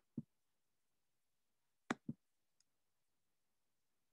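Computer mouse clicks over near silence: one click just after the start, then a quick pair of clicks about two seconds in, followed by a faint tick.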